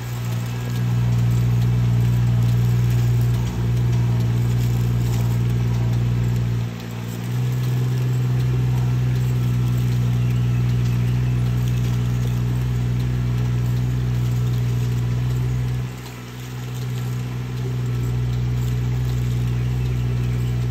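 Riding rice transplanter's engine running steadily with a low hum while it plants, falling off briefly twice before picking up again.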